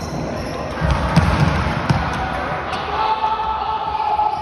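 Floorball play in a sports hall: sharp clicks of sticks striking the plastic ball and floor, with players calling out.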